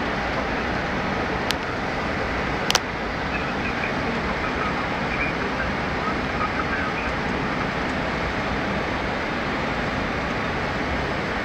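Steady rush of airflow and engine noise inside a Boeing 767's cockpit in flight on approach. Two sharp clicks about a second and a half in and just under three seconds in, the second louder.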